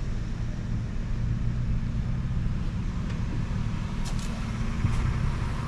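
A 4x4 pickup truck's engine running steadily at low revs: a low, even hum, with two faint clicks about four and five seconds in.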